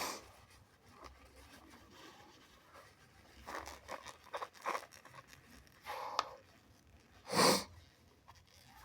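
A person with a wet, runny nose sniffling, with a tissue crinkling, and a few short bursts of breath around four seconds in. About seven and a half seconds in comes one loud half-second nasal burst, the loudest sound here.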